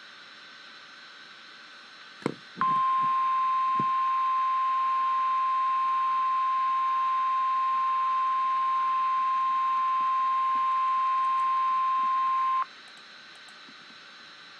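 NOAA Weather Radio warning alarm tone: one steady high tone held for about ten seconds, then cut off. It comes in just after a click and is the alert signal that a warning message follows. It sits over faint radio hiss.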